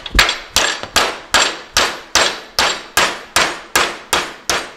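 Hammer striking steel bracket stock, a steady run of about a dozen sharp blows, roughly two and a half a second, each ringing briefly, the metal being hammered into shape for a fender skirt mounting bracket.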